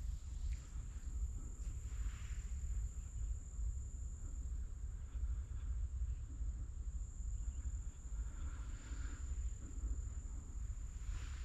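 An insect making a steady, unbroken high-pitched drone over a low rumble, with a few faint brief rustles.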